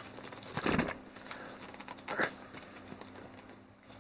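Cardboard box and paper insert rustling and scraping as a tightly fitting drone battery is worked out of them by hand, with two louder rustles, one just under a second in and one about two seconds in.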